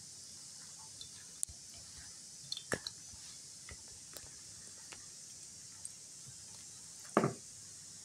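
Metal spoon pressing and stirring a mass of oil-soaked St John's wort flowers in a cloth strainer: scattered soft squishes and small clicks, with one short, louder sound about seven seconds in.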